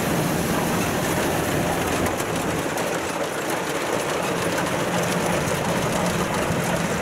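Kubota DC93 rice combine harvester working in the field: its diesel engine running steadily under load, with a continuous dense mechanical clatter from the cutting and threshing machinery.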